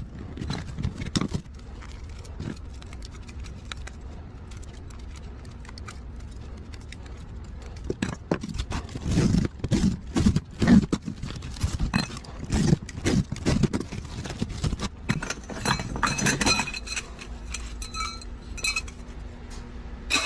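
Pieces of metal clinking and knocking together, with a busy run of knocks in the middle and ringing metallic clinks in the second half. A steady low hum comes in near the end.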